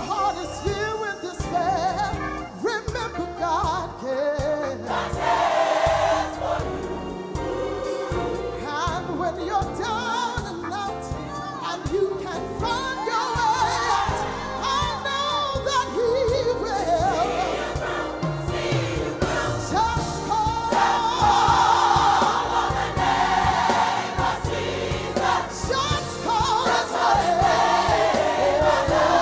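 Live gospel music: a soloist sings lead into a microphone in front of a large mass choir, over instrumental accompaniment with a steady beat. The choir swells louder in the second half.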